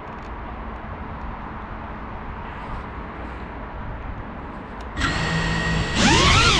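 Faint steady outdoor hiss, then about five seconds in an FPV quadcopter's brushless motors spin up with a steady whine. A second later they throttle up into a louder, rising and wavering whine.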